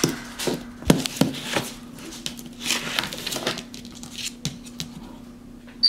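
A capuchin monkey handling a ballpoint pen on paper at a table: a few sharp taps and knocks in the first two seconds, then a scratchy rustle of pen and paper.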